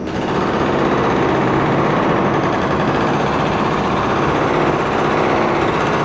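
Demolition machinery running: a steady engine drone mixed with fast, dense rattling.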